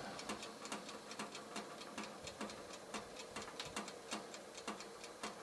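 Pizza oven used for reflow soldering, ticking faintly and irregularly, several clicks a second, as it heats up through the reflow ramp.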